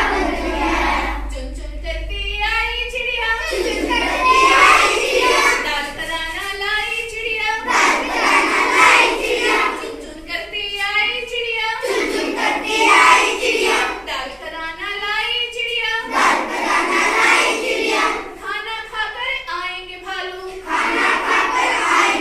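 Children's voices singing a rhyme together, in phrases of a few seconds each.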